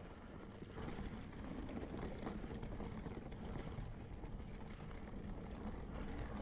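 A mountain bike being ridden on a trail, heard close up: steady wind on the microphone and a rolling rumble of tyres, with a few faint rattles.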